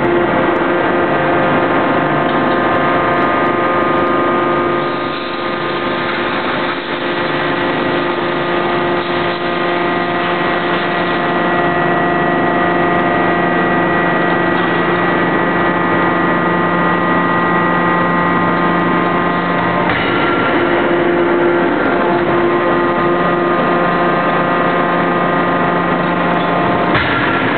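Steady hum of a C92K-200KJ CNC fully hydraulic die forging hammer and its hydraulic drive, made of several steady tones. It dips slightly about five seconds in and shifts in pitch about twenty seconds in and again near the end, with no heavy hammer blows standing out.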